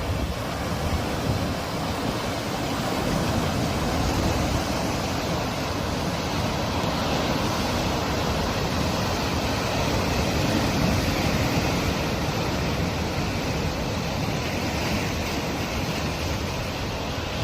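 Sea surf: a steady rush of waves breaking and washing, swelling gently in loudness now and then.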